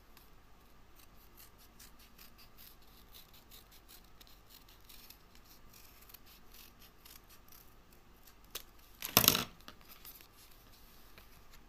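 Scissors snipping through thin card: a run of small, quiet cuts, with one brief, much louder noise about nine seconds in.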